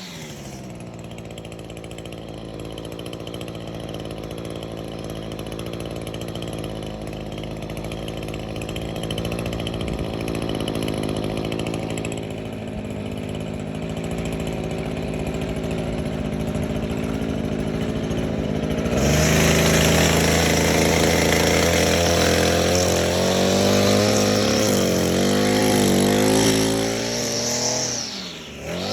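Echo SRM-225 string trimmer's small two-stroke engine running steadily at low speed. About two-thirds of the way through it is throttled up and runs louder, then the revs rise and fall several times and drop briefly near the end.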